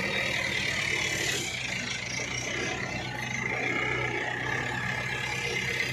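Diesel engine of a CAT backhoe loader running steadily close by while its bucket arm swings.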